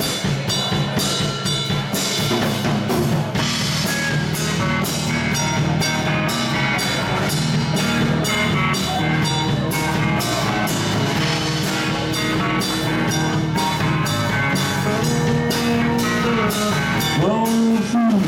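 Live blues band playing: a drum kit keeps a steady beat under electric guitar and electric bass. A sliding note comes in near the end.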